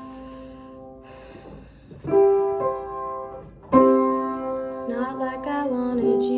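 Piano playing slow held chords, with new chords struck about two seconds in and again a couple of seconds later; near the end a woman's voice starts singing the first line of the song over it.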